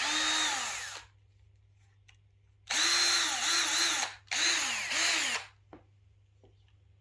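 Cordless drill backing out screws in three bursts: a short run that winds down, then two longer runs about three and four and a half seconds in, the motor's pitch dipping and recovering as it works, each one spinning down at the end.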